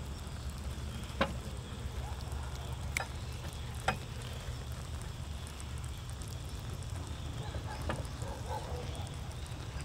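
Eating at a meal: a few sharp clicks of chopsticks against dishes over a steady low rumble.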